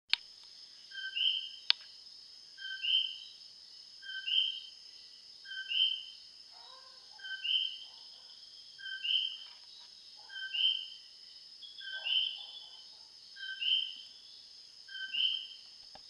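Common coquí frogs calling their two-note "co-quí": a short lower note followed by a higher, rising note, about every second and a half, ten times in a row. A steady high-pitched chorus of other night callers runs underneath, and there is one sharp click a little under two seconds in.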